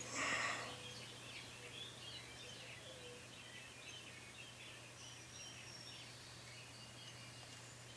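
Faint birds chirping in the background over a low steady hum, with a brief rustle at the start.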